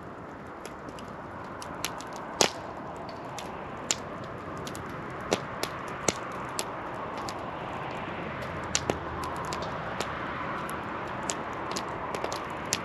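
Wood campfire crackling, with irregular sharp pops (one louder snap about two seconds in) over a steady rushing hiss.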